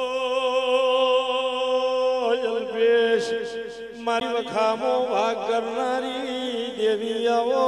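Devotional chant sung by a man: one long held note with vibrato for about two seconds, then the singing grows fuller with several overlapping parts.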